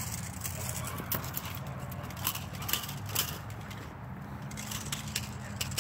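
A protection dog running across packed dirt and striking a padded bite suit: a few scattered thumps and scuffs over a steady low rumble.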